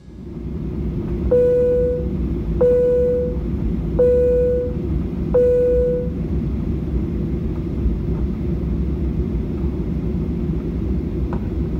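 Airliner cabin chime sounding four times, one ringing note repeated about every 1.3 seconds: the signal that takeoff is about to happen. Underneath, the steady low rumble of a Boeing 737-800's cabin while taxiing.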